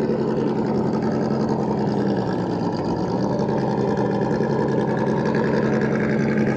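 RC scale crawler's brushed electric motor (Holmes Hobbies Trailmaster 550) and geared drivetrain whining steadily as it crawls, the pitch wavering slightly.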